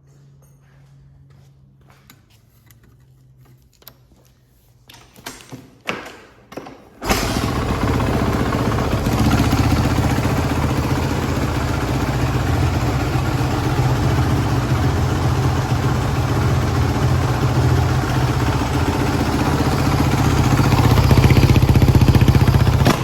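2015 Kawasaki KX450F's single-cylinder four-stroke dirt-bike engine being started: a few knocks, then it catches about seven seconds in and runs loudly and steadily.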